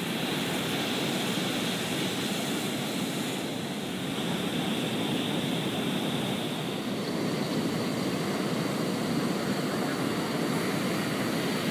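Ocean surf breaking and washing on a sandy beach, a steady rush of noise.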